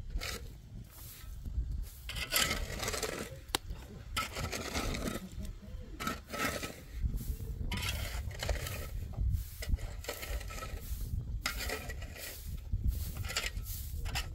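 Low rumble of wind on the microphone, with irregular scraping and rubbing noises every second or so.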